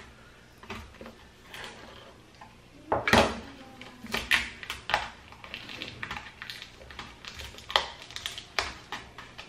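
Irregular clicks, taps and scrapes of hands handling an LCD monitor's sheet-metal back shield and the taped cable at its top edge, with a louder scraping rasp about three seconds in.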